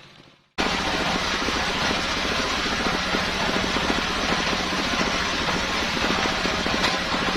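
Engine of a homemade circular saw rig running steadily with a fast, even beat, cutting in abruptly about half a second in after a brief silence.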